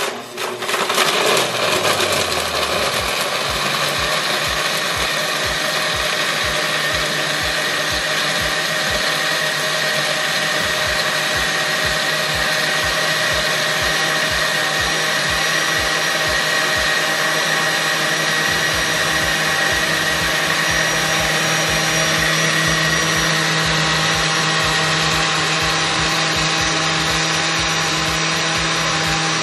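Oster countertop blender running on ice and frozen strawberries. Over the first couple of seconds the motor's pitch drops and settles as it bites into the ice, then it runs steadily as the mix turns to a smooth slush.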